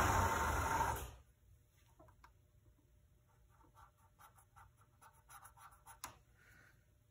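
Screw-drive garage door opener motor running with a steady hum, then cutting off about a second in. After it, the faint squeak and scratch of a felt-tip marker writing on the metal rail, with one sharp click near the end.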